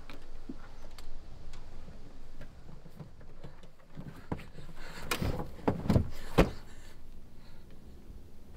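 Thuds and rustling against a car, a cluster of knocks about five to six and a half seconds in, the last one sharp, over a quiet background with small clicks.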